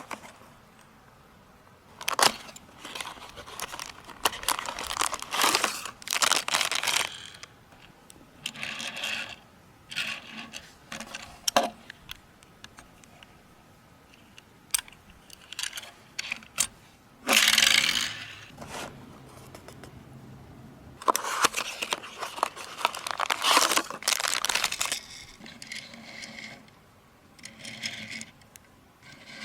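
Toy-car packaging being handled and opened by hand: irregular bursts of crinkling, tearing and scraping with small sharp clicks, a few loud spells separated by short quiet gaps.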